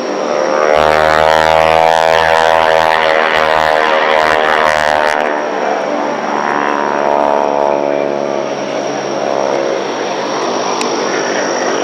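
Aerobatic biplane's piston engine and propeller droning overhead. The pitch swells and sags twice as the plane manoeuvres and passes. Wind rumbles on the microphone during the first, louder pass.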